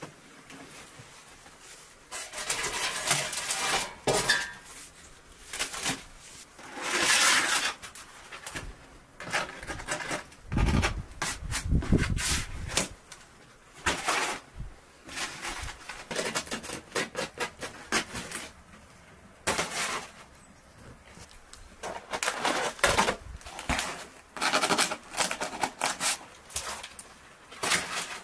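Rustling and handling sounds as a large cotton cloth is spread on the floor and dry lavash flatbread and household items are set out on it: a run of uneven swishes, crinkles and soft knocks, with a few low thuds around the middle.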